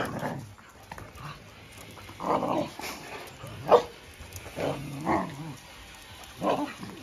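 Dogs giving short barks and yelps, about five in all, spaced a second or so apart, the sharpest one just past halfway.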